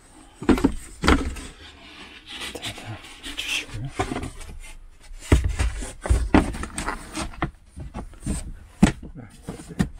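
Plywood lid handled and fitted onto a wooden battery box: a series of irregular wooden knocks with wood scraping against wood between them.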